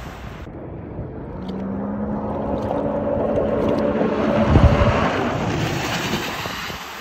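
Sea-Doo personal watercraft engine running at speed as it passes by, growing louder to a peak past the middle and then fading, with wind noise on the microphone.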